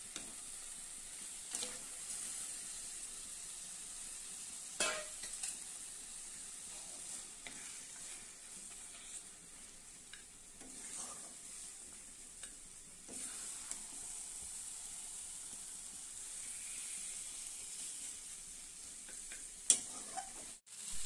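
Mutton pieces sizzling as they fry in hot oil and masala in an iron kadai, stirred with a metal spoon that scrapes and knocks against the pan now and then, with one sharp knock near the end.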